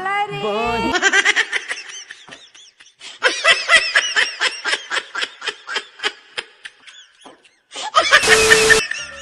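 A laughter sound effect: a fast string of high-pitched laughs that fades out. About eight seconds in, a short burst of TV static hiss with a steady hum plays as a glitch transition.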